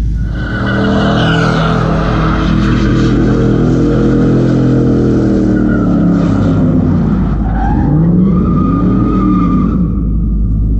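A vehicle spinning donuts: its engine is held at high revs while the rear tyres squeal and screech against the pavement. Near the end the revs drop and climb again.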